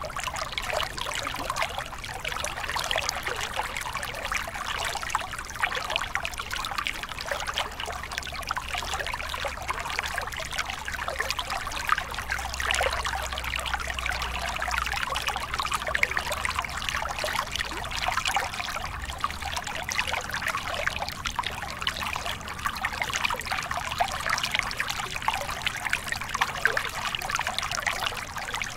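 Small mountain stream splashing over a low rocky cascade into a pool: steady babbling and trickling water.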